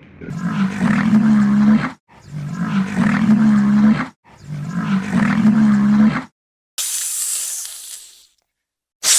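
A bovine lowing three times in a row, each a long low-pitched moo of nearly two seconds, followed by two shorter bursts of hissing noise near the end.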